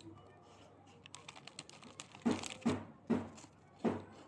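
Light crinkling of a plastic wafer wrapper as a wafer is pulled out. Then, a little past halfway, four louder short mouth sounds close to the mic as he bites into and chews a crisp coconut creme wafer.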